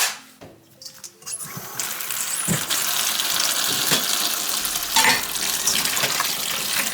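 Kitchen tap running into the sink as mushrooms are rinsed under it, the water starting about a second and a half in, with a few knocks from handling.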